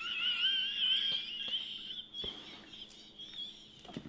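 A woman laughing so hard it comes out as a high, wavering squeal, fading away after about two seconds.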